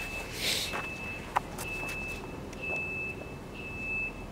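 Electronic warning beeper sounding a single high-pitched tone, switching on and off roughly once a second, with a rush of noise about half a second in and one sharp click just after.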